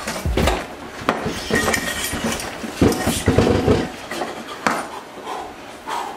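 Kitchen items being handled on a counter: a run of knocks and clinks, with a cluster of heavier thumps about three seconds in.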